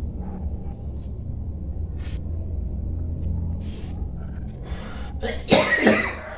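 Low rumbling noise, then about five and a half seconds in a loud, short vocal outburst with a falling pitch from the person being massaged.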